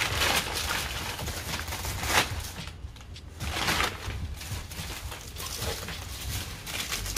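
Brown kraft wrapping paper rustling and crinkling in irregular bursts as a parcel is unwrapped and a wrapped box is handled out of it.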